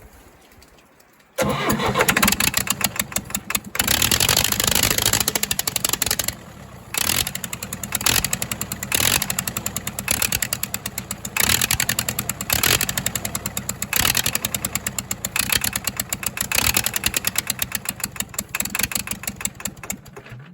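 The 1963 Case 310F bulldozer's diesel engine is cranked on its starter a little over a second in. It catches and runs roughly in uneven pulses, with two short breaks, but won't keep running on its own: air is still being bled from the fuel injection lines. It cuts off suddenly at the end.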